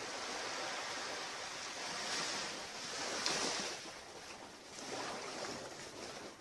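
Surf washing onto a beach: a steady rush of breaking waves that swells twice and fades near the end.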